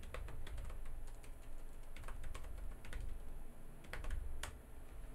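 Typing on a computer keyboard: irregular key clicks, thinning out near the end.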